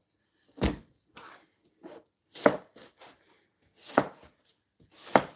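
Kitchen knife chopping produce on a cutting board: four firm cuts a second or more apart, with a few lighter taps in between.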